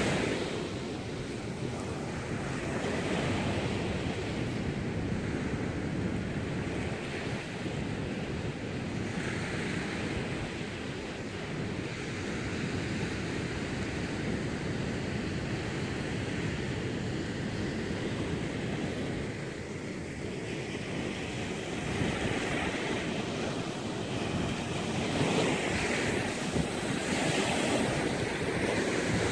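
Ocean surf: waves breaking on the reef and washing up the sand in a continuous rush that swells louder every few seconds.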